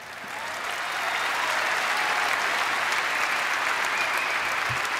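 Large audience applauding after a line in a political speech, swelling over the first second and then holding steady.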